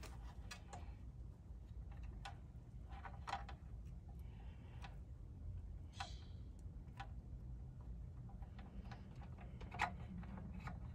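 Scattered light clicks and taps of hands working the plastic sprinkler controller and its enclosure, irregularly spaced with one sharper click near the end, over a low steady rumble.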